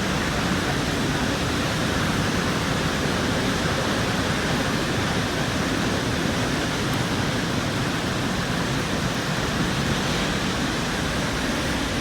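Vernal Fall in heavy spring flow: a steady, unbroken rush of falling water and spray.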